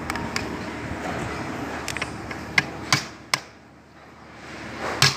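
Sharp clicks and knocks of metal parts as an oil seal is worked onto a forklift wheel hub by hand, with a louder knock near the end. A steady background rumble drops away about three seconds in.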